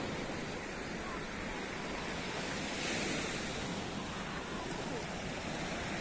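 Black Sea surf washing onto a sandy shore, a steady rush that swells a little about halfway through, with wind rumbling on the microphone.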